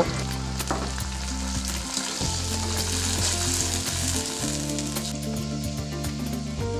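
Cucumber flesh sizzling as it stir-fries in hot oil in a wok with sautéed onions, stirred with a metal slotted spatula that clicks and scrapes against the pan now and then.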